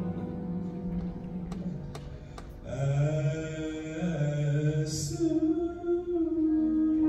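A gospel choir sings low, held notes. About three seconds in, a male soloist's voice comes in louder over the choir.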